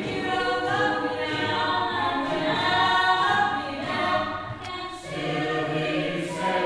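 Mixed choir of men and women singing held chords, with a brief break between phrases about five seconds in.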